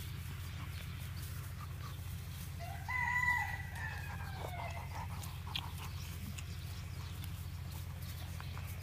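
A labradoodle puppy lets out one short high-pitched squeal about three seconds in while wrestling with its littermates. A steady low rumble runs underneath.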